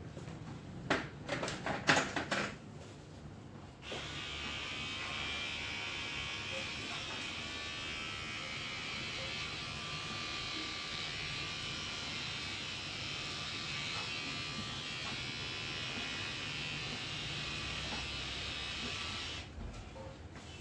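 A few sharp knocks about a second in. Then a small handheld electric motor switches on about four seconds in and buzzes steadily for about fifteen seconds before switching off near the end.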